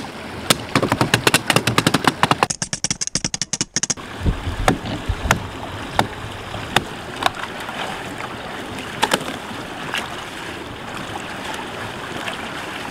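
Axe chopping through creek ice: a quick run of sharp blows in the first few seconds, then single strikes every half-second to second, over the steady rush of running creek water.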